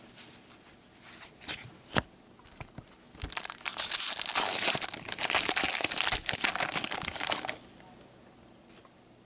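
A 2016-17 O-Pee-Chee hockey card pack's wrapper being torn open and crinkled: a loud crackling rustle that starts about three seconds in and lasts about four seconds, after a few light clicks.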